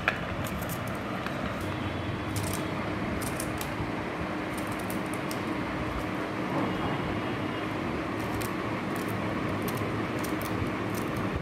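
Steady room noise with a low hum and hiss, and faint light ticks now and then.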